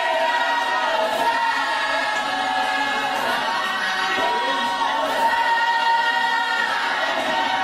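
A large congregation of women singing a church hymn together a cappella. Many voices sound at once, steady and unbroken, with no instruments.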